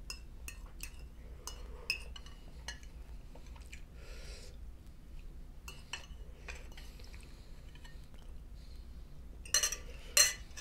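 An eating utensil tapping and clinking against a bowl in scattered light clicks, with a quick run of louder clinks near the end, as the last of a bowl of ramen is eaten.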